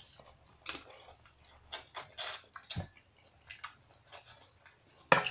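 Close-up eating sounds of someone chewing boiled seafood: irregular wet chewing and lip smacks, with a louder click near the end.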